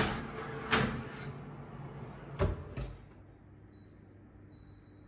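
Metal baking tray slid into a wall oven with a few clattering knocks, then the oven door shut with a thump about two and a half seconds in. Near the end, two short high electronic beeps from the oven's control panel as it is set.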